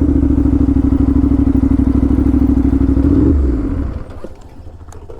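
Aprilia RS 457's parallel-twin engine through an SC Project exhaust, running loud at steady revs. About three seconds in the revs fall away and the engine goes much quieter.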